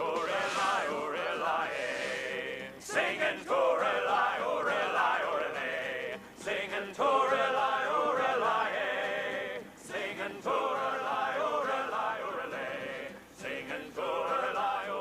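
A group of men singing together in unison, in long held phrases with short breaks between them.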